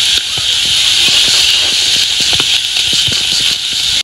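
Chopped onion sizzling in butter in a hot pan: a steady hiss with scattered small pops and crackles.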